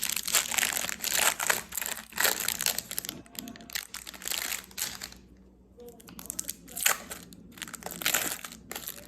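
Plastic food packaging crinkling in repeated bursts as it is handled and opened, with a short lull a little past the middle.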